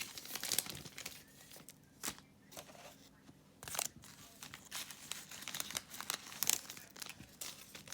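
Trading cards and their packaging being handled: irregular crinkling and rustling.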